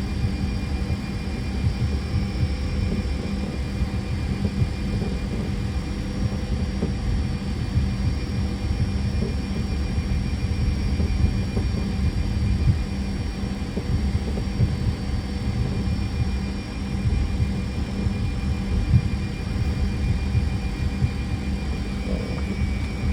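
Steady rumble and hum inside a Fokker 100 airliner's cockpit on the ground, with a few faint steady tones over it.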